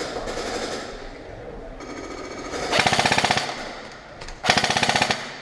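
Airsoft rifle firing two short full-auto bursts, a rapid, even rattle of shots, the first a little under three seconds in and the second near the end.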